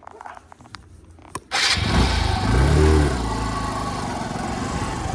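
A vehicle engine starts suddenly about a second and a half in, revs up and back down once, then runs steadily.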